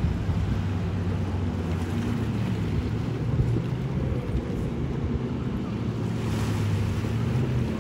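An engine running at a steady speed, its pitch shifting slightly a couple of seconds in, with wind buffeting the microphone.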